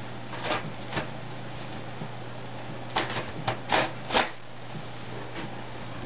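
Sheet-metal DVR cover sliding down onto its chassis: short metallic scrapes and clicks as it slides and catches into place, two in the first second and a quicker cluster of about five around three to four seconds in. A steady low hum sits underneath.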